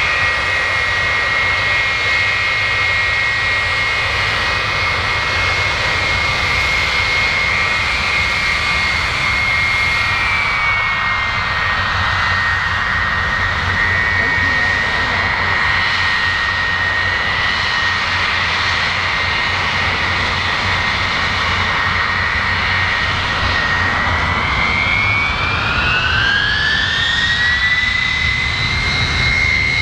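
Boeing E-3A Sentry's Pratt & Whitney TF33 turbofans running with a steady high whine over a low rumble. About four-fifths of the way through, the whine rises in pitch as the engines spool up.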